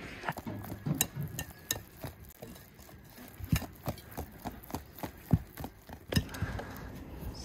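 Wire whisk beating thick cake batter in a glass bowl, its metal wires clinking against the glass in quick, irregular strikes.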